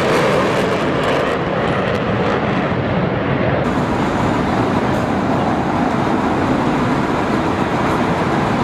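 Jet fighters flying past in formation, their jet engines making a loud, steady roar that starts and stops abruptly with the footage.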